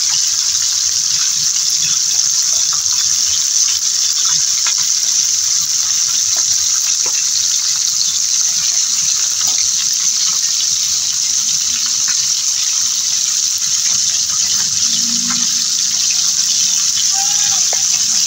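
Whole fresh tamban (sardines) deep-frying in hot oil in a pan: a loud, steady sizzle with many small pops and crackles of spattering oil.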